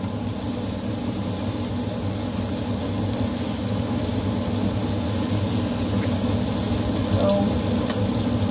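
Food frying in a pan on the stove as it is stirred: a steady hiss over a constant low hum.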